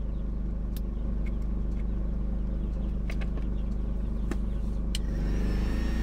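Steady low hum with a few sharp clicks as hot glue is pushed from a glue gun into a heat-shrink sleeve. About five seconds in, a heat gun starts blowing and a hiss rises over the hum.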